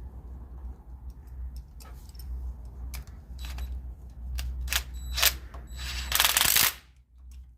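Small metal clicks and light knocks of hand tools and parts being handled in a workshop, over a steady low hum, with a short loud rushing hiss about six seconds in.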